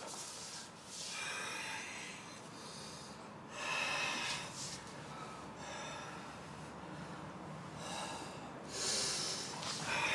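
A person breathing heavily: about four long, drawn-out breaths, two to three seconds apart.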